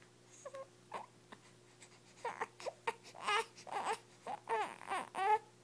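Young infant fussing and crying in short pitched cries, a few at first, then coming in quick succession from about two seconds in.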